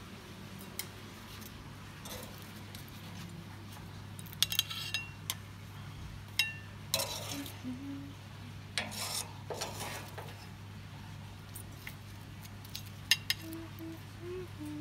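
Stainless steel barbecue tongs clinking and scraping against the grill grates and a ceramic plate as grilled prawns are lifted off, with a few sharp ringing clinks about a third of the way through. A steady low hum runs underneath.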